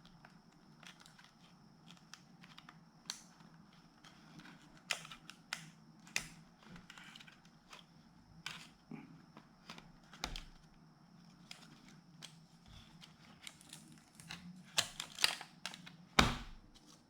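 Scattered small clicks and taps of metal tweezers and laptop parts being handled while the touchpad cable is worked into place, with a quick cluster and a louder knock near the end.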